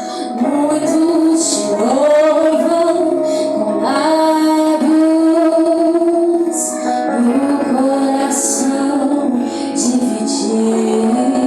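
Christian worship song: a woman singing long, held notes that slide between pitches, over steady instrumental accompaniment.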